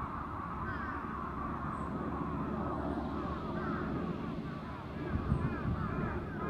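Many birds calling at once, a dense chatter of short chirps over a low, steady rumble.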